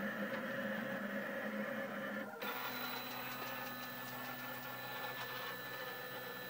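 Stepper motors of a Rostock delta 3D printer whining through the last moves of a print. About two and a half seconds in, the sound breaks off briefly, then turns into a different steady whine as the carriages drive the effector up the towers at the end of the print.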